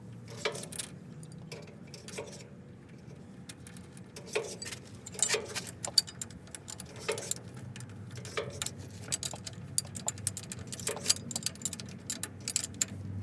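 Irregular light metallic clicks and taps, metal tools and parts being handled during drive shaft universal joint work, a few with a short ring. A steady low hum lies underneath.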